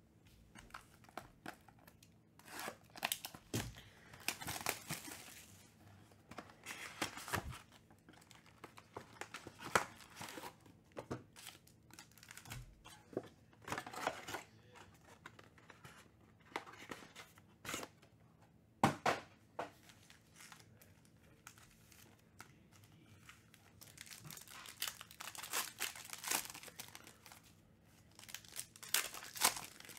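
Shiny 2021 Panini Select UFC card-pack wrappers being torn open and crinkled by hand, in irregular bursts, with a few sharp taps as packs and cards are handled.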